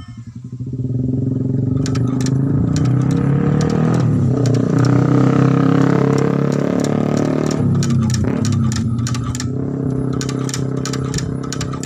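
A motor engine running loud and close. It builds up over the first second, its pitch shifts around the middle and it eases off near the end, with rapid sharp clicking over it.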